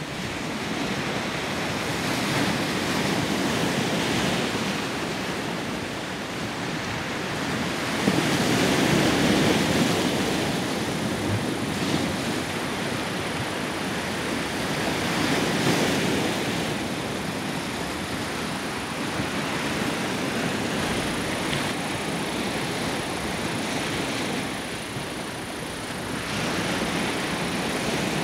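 Rushing noise of wind and choppy sea waves, swelling and easing every few seconds, with no distinct engine sound from the ship.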